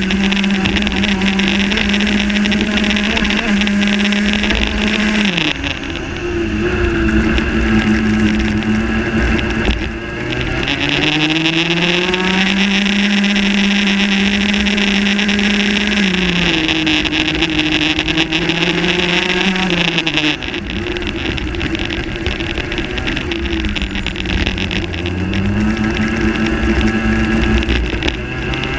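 Rotax Max 125 cc two-stroke kart engine at racing speed, heard from on board: revs held high on the straights, falling several times as the kart brakes into corners and climbing again as it accelerates out.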